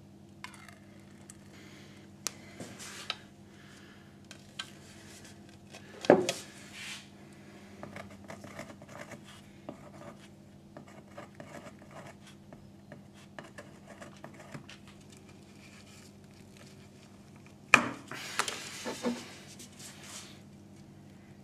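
Metal paint tins handled on a wooden workbench: light clinks, scrapes and rattles, with two sharp knocks of a tin set down, about six seconds in and again near the end, the loudest. A steady low hum runs underneath.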